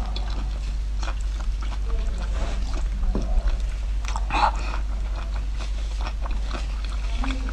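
Close-miked eating: biting, sucking and chewing on strips of food soaked in chili oil, with small wet clicks and a louder slurp about four seconds in. A steady low hum runs underneath.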